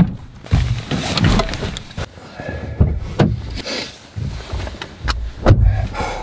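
Car doors and people getting into a car: a string of clunks and thumps, about seven, with handling noise between them. The loudest come at the very start and about five and a half seconds in.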